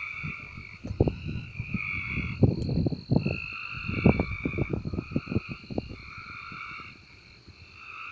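A chorus of frogs croaking, their calls overlapping into a continuous trilling. Irregular low rumbling bursts from about a second in to about six seconds in are the loudest sound.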